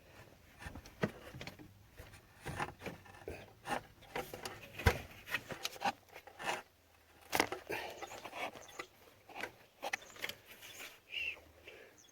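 Irregular metallic clicks, knocks and scrapes of a wrench and hands working at a serpentine belt tensioner, with one sharper knock about five seconds in.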